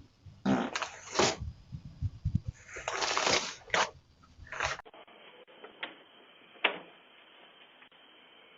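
A man farting, picked up by a Ring doorbell camera's microphone: irregular bursts and a run of low rapid sputters in the first half. About five seconds in the sound cuts to a steady hiss with a single sharp click.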